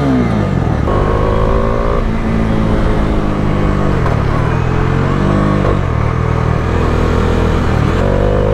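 Bajaj Dominar's single-cylinder engine pulling away and accelerating. The engine note steps up and down several times as the bike gains speed and changes gear, with a dip about four seconds in.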